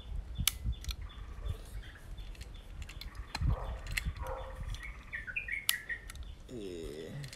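Leaf shutter in the AKArette's Schneider-Kreuznach Radionar 50mm lens clicking as the release is pressed several times, a few sharp clicks, set at 500. The shutter fires only some of the time: it is unreliable and, as the owner thinks, needs tuning.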